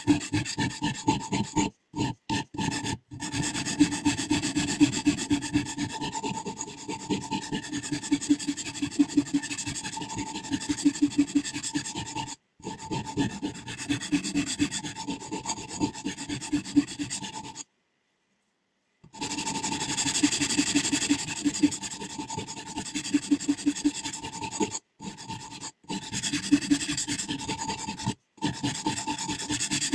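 Sharpening stone rubbed back and forth along a scissor blade in a guided sharpening system, in a steady rhythm of abrasive strokes. The sound drops out completely for short moments several times, once for over a second.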